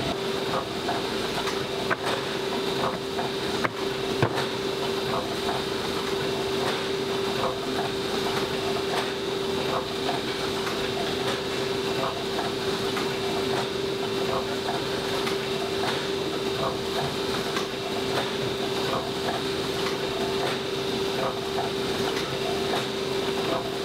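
Paper-folding machine running and feeding folded magazine sheets out onto its delivery belt: a steady hum with a fast, uneven patter of clicks.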